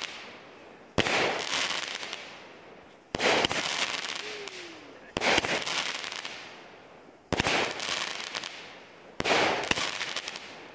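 A 200-gram consumer fireworks cake firing shots about every two seconds, five in all. Each shot bursts with a sharp bang, followed by a dense crackling that fades away before the next.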